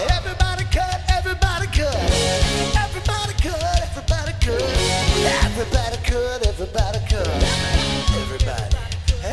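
Live rock band playing an 80s pop-rock song: a singing voice over electric guitars, keyboard and a steady drum-kit beat.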